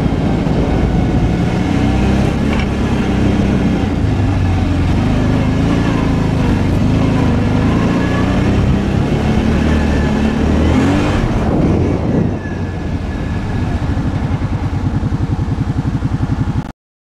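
Arctic Cat 650 V-Twin ATV on the move, its V-twin engine running under throttle with wind and tyre noise. About two-thirds of the way through, the engine drops back to an even, pulsing idle, and the sound cuts off suddenly near the end.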